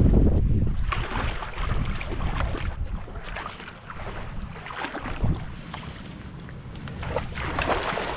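Wind buffeting the microphone, heaviest in the first second, over irregular splashing of shallow seawater as someone wades beside an inflatable kayak.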